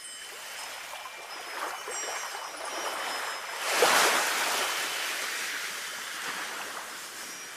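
Sea waves on a shore: a wave swells, breaks about four seconds in and washes back out. Faint wind chimes ring near the start.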